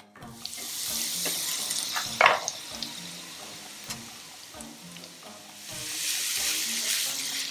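Diced onion and cubed sausage frying in butter in a frying pan: a sizzle that swells twice while the pan is stirred, with a sharp knock about two seconds in. Faint background music runs underneath.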